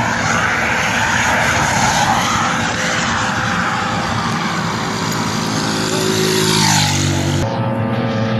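Suzuki Raider 150 Fi motorcycle engines at high revs as the bikes race past, the engine note falling in pitch as one goes by about seven seconds in. The sound breaks off abruptly soon after, giving way to a steadier engine hum.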